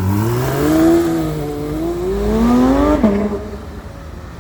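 Porsche 911 GT3 RS (992) 4.0-litre flat-six accelerating hard: its roar climbs in pitch, eases briefly, climbs again, then drops off sharply about three seconds in and fades as the car pulls away.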